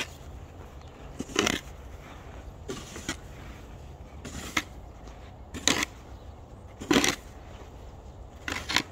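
Snow shovel chopping and scraping at packed snow in separate sharp strokes, roughly one every second or so.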